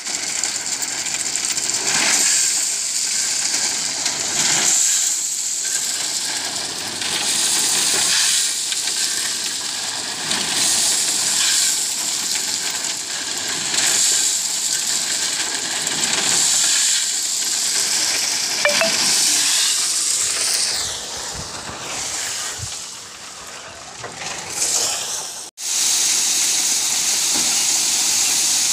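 Crushed stone chips pouring and sliding off the back of a truck onto a pile: a steady hissing rattle that swells about every three seconds. It breaks off for a moment near the end, then runs on.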